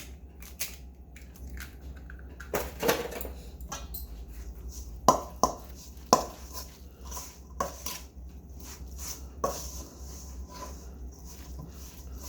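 Kitchen clatter of utensils and a mixing bowl: a scattered series of sharp knocks and clicks, the loudest two about a second apart midway, as an egg is added to the chicken croquette mixture.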